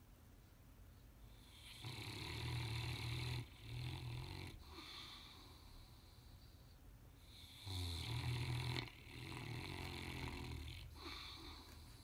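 Saint Bernard snoring in its sleep: two loud snores about six seconds apart, each trailing off into a softer breath.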